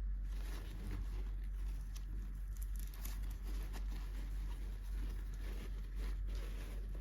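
Light rustling and soft tapping of hands handling small toy packaging, over a steady low hum.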